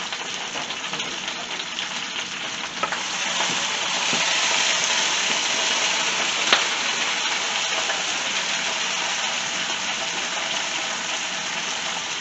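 Fresh spinach sizzling as it wilts in hot olive oil in a frying pan. The hiss is steady and gets louder about three seconds in. The spinach is stirred with a utensil, with one sharp tap near the middle.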